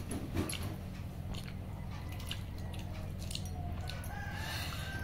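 Person eating by hand, chewing and biting food, with a few short crisp clicks. A chicken calls in the background near the end, a few rising and falling cries, over a steady low hum.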